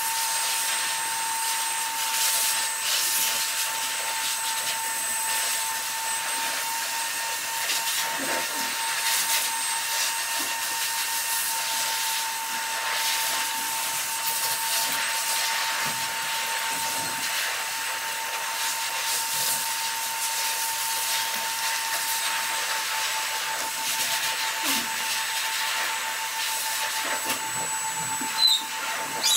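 A running electric motor gives a steady hiss with a thin constant whine. Over it come faint snips of grooming scissors trimming a dog's coat, and a short sharp click near the end.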